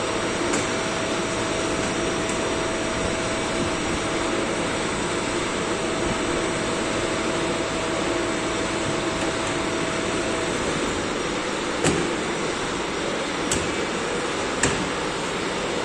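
Plastic injection moulding machine running with its mould clamped shut: a steady whirring machine noise with a steady hum tone that stops about two-thirds of the way through, then three sharp clicks.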